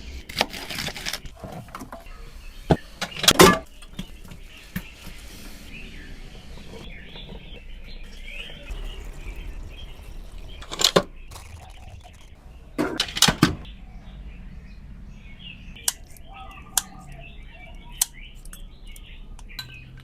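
A few sharp knocks and clatters of objects being handled, with small birds chirping in the background.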